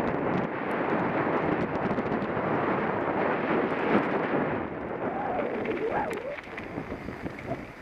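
Mountain bike rolling fast down a loose gravel trail: tyre noise and rattle mixed with wind on a helmet-mounted camera's microphone, easing as the bike slows in the last second or two. A brief wavering tone sounds a little past halfway.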